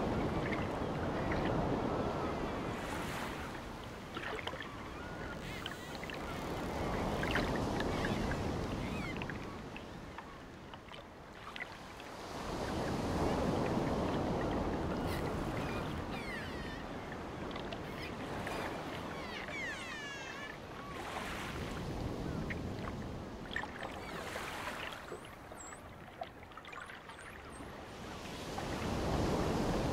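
Ocean surf breaking against a seawall and washing back, rising and falling in slow swells, with calmer stretches between the bigger waves.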